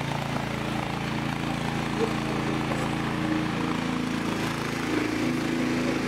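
Small engine of a stand-on mini wheeled skid steer loader running steadily as the machine drives and turns, its note shifting slightly past the middle.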